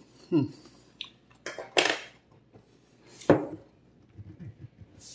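Metal fork knocking against a mixing bowl and then laid down on the countertop: three sharp clinks about a second and a half apart, the loudest a little under two seconds in.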